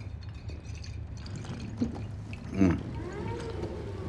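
Water being gulped from a plastic bottle in a few separate swallows, over a steady low hum of the train carriage.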